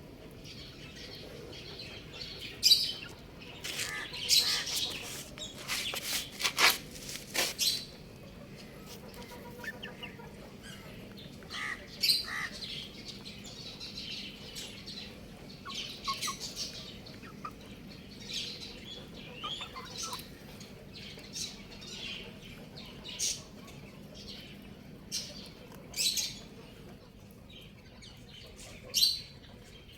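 Young chicks peeping in short, high-pitched chirps scattered throughout, mixed with sharp clicks and rustles that are busiest a few seconds in.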